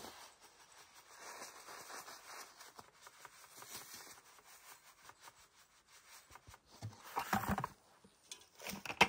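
Wax sand pouring from a plastic bucket onto a freshly bedded trap, a soft steady rustling hiss, with a short louder sound about seven seconds in.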